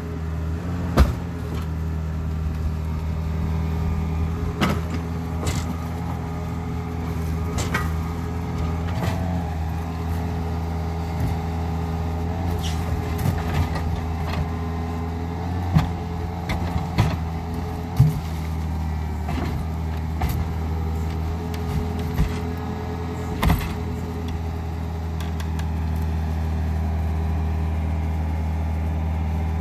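Caterpillar mini excavator's diesel engine running steadily under load, with its bucket scraping and clanking against a large buried tank. Sharp knocks stand out a dozen or so times.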